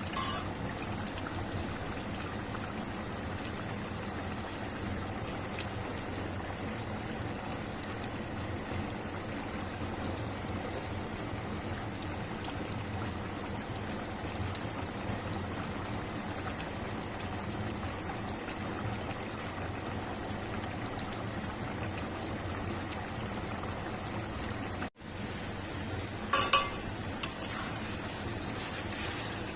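Chicken curry cooking in a pot on the stove, bubbling and sizzling steadily. Near the end there are a few sharp metal clinks of a utensil against the pot.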